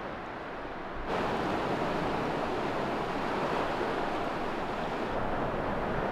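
Sea surf washing steadily on the shore, with some wind; it gets louder about a second in.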